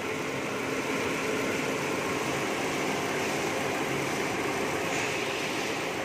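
Ford EcoSport engine running steadily at idle while misfiring, its cylinder 4 misfire later confirmed by code P0304, heard from under the open hood along with the electric radiator cooling fan.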